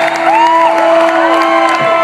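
Rock-club audience cheering, whooping and whistling, the shrill calls rising and falling in pitch, over a steady held note from the stage.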